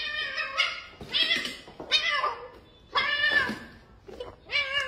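Tabby kitten meowing repeatedly, about five short calls in quick succession, each one bending up and down in pitch.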